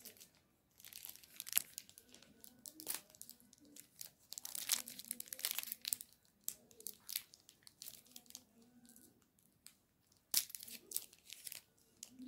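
Plastic chocolate-bar wrapper crinkling and tearing, in short irregular rustles.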